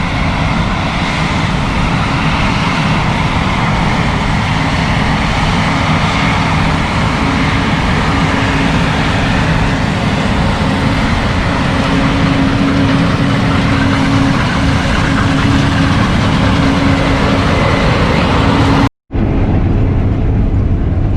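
Case IH 8230 combine harvester running steadily under load while harvesting, a constant mechanical drone with a steady low hum. It breaks off for a moment near the end.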